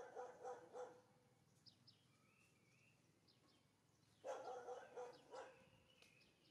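Two short runs of barks, each a quick series of four or five barks lasting about a second: one at the start and one about four seconds in. Small birds chirp faintly between them.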